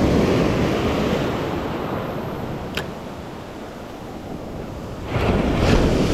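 Small waves in shallow surf washing in over sand: loud at first, ebbing away, then another wave swells and breaks near the end. A single sharp click sounds about three seconds in.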